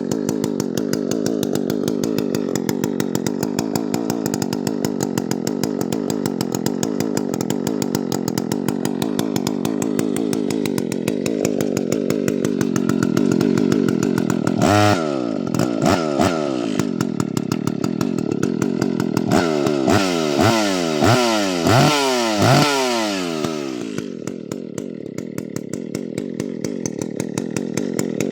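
Freshly rebuilt Husqvarna 2100 CD two-stroke chainsaw running at a steady idle. About halfway through it is blipped to high revs a few times, then several more times in quick succession, before settling back to idle.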